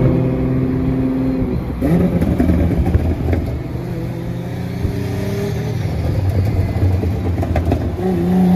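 Nissan GT-R's twin-turbo V6 driving alongside in traffic. Its engine note runs steadily, rises as it accelerates about two seconds in, and shifts pitch again near the end, over road noise.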